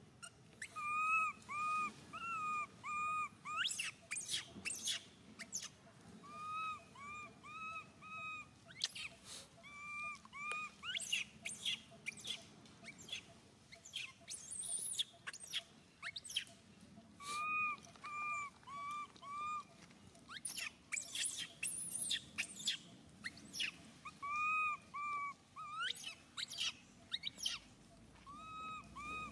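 Baby macaque crying: runs of short, high-pitched wailing calls, four or five in a row, repeated over and over, mixed with sharp squeaky cries.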